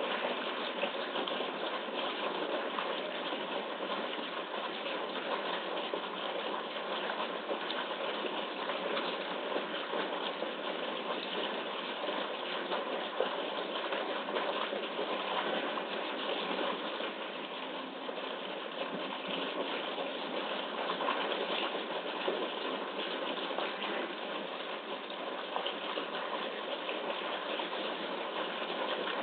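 Steady rush of water in a zoo pool, with light splashing from polar bear cubs swimming and playing.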